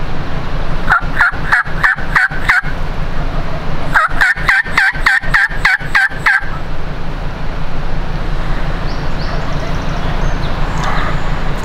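Two series of turkey yelps, about six notes and then about nine, at roughly three or four notes a second, each note starting high and dropping off. A steady low hum runs underneath.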